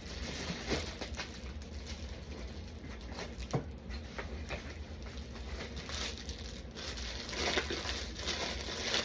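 Rustling and small taps and knocks of items being handled and unpacked, growing busier near the end.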